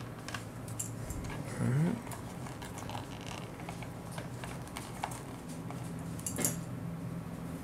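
Small clicks and taps of a plastic action figure's joints and feet as it is handled and set on a cutting mat, over a steady low hum; one sharper click late on.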